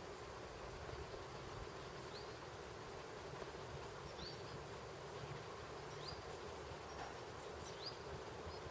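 Outdoor countryside ambience: a steady insect-like drone, with a short, high, falling chirp repeating about every two seconds.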